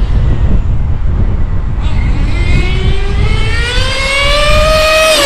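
HPI G3.0 HO two-stroke nitro engine of a 1/8-scale RC rally car revving out under acceleration, a whine that climbs steadily in pitch and starts to drop at the very end. A steady low rumble of wind on the microphone runs underneath.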